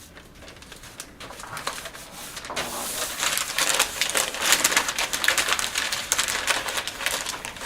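Rapid crinkling and clicking of packing material as the boxed decorative glass window inserts are handled, getting louder about three seconds in.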